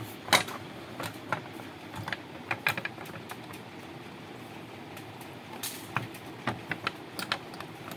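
Irregular plastic clicks and knocks as the top cover of a note counting machine is handled and fitted back on, the sharpest about a third of a second in and a quick run of them near the end.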